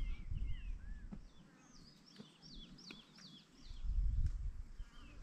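A quick run of short, high chirping calls, about eight sweeping notes in a row in the middle, with a few lower gliding chirps in the first second. Bursts of low rumble come near the start and again about four seconds in.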